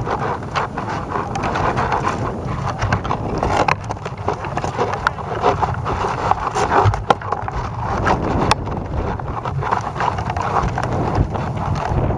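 Wind buffeting the microphone of a camera carried aloft on a balloon tether, mixed with a constant run of quick clicks and rattles.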